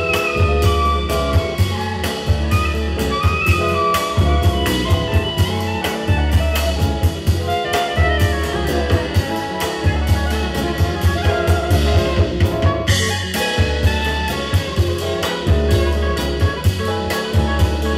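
Live instrumental jazz band: soprano saxophone carrying the melody over drum kit, electric bass, keyboard and electric guitar. There is a sharp accent with a bright splash about thirteen seconds in.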